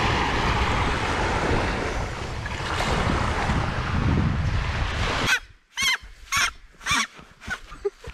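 Small waves washing onto a sandy shore, with wind on the microphone. About five seconds in, it cuts to a run of five short, sharp sounds about half a second apart.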